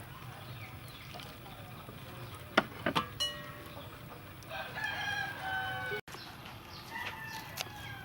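A rooster crowing, one call of about a second and a half starting about four and a half seconds in and a fainter one near the end. Shortly before the first crow come a few sharp knocks, the loudest sounds here.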